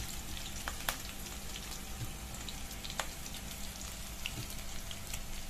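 Sliced onions, green chillies and ginger-garlic frying in hot oil: a steady sizzle with scattered small pops and crackles.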